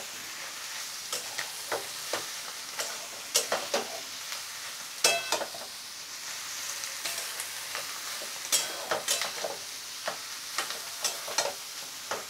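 Metal spatula scraping and knocking against a metal kadhai as fried potatoes and oysters are stir-fried (bhuna) in a dry spice masala, over a steady sizzle. The strikes come irregularly, and a couple ring briefly, about five seconds in and near nine seconds.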